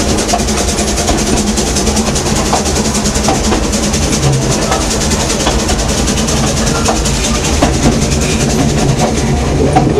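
Narrow-gauge steam train running: a steady loud rumble from the moving carriage with a fast, regular clatter of wheels and couplings.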